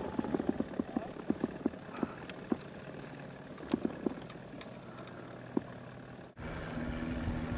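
Scattered sharp clicks and light knocks of fishing tackle as a hooked largemouth bass is reeled in, thick in the first two seconds and sparser after. About six seconds in, the sound cuts off suddenly into a steady low hum.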